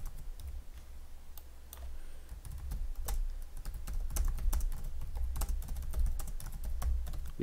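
Typing on a computer keyboard: a run of irregular key clicks, over a faint low hum.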